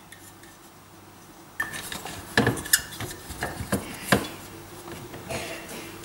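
Irregular clicks, light knocks and rubbing from a replacement dishwasher water heater being handled and pushed into place against the plastic pipework and frame, starting about a second and a half in.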